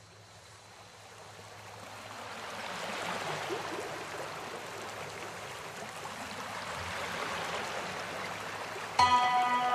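Steady rushing of running water, like a stream, fading in over the first few seconds and then holding even, with a faint low hum beneath it. About nine seconds in, sustained music notes come in loudly.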